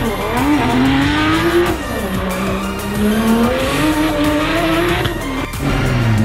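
Toyota GR Supra drift car sliding through a corner. The engine revs hard, its pitch rising and falling as the throttle is worked, with the tyres squealing under the slide.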